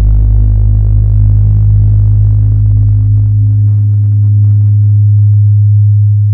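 Deep, loud sustained electronic drone of a few steady low tones, as in a film score's ambient underscore; its lowest tone fades away a little past halfway.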